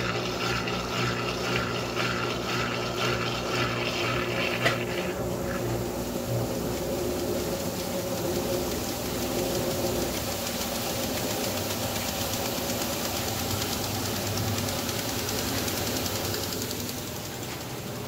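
Electrolux top-load washing machine running in its spin cycle: a steady mechanical hum that pulses about twice a second for the first few seconds, then settles into a smoother, even whir.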